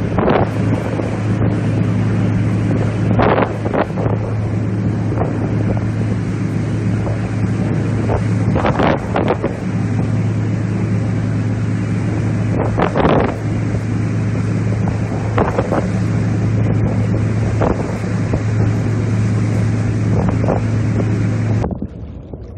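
Steady low engine drone of a boat, with wind gusting on the microphone over it. The drone and wind cut off abruptly near the end.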